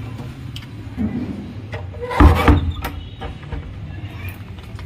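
Handling and movement noise while carrying a bag of cat food: a few light clicks, and a loud thump about two seconds in, over a low steady hum.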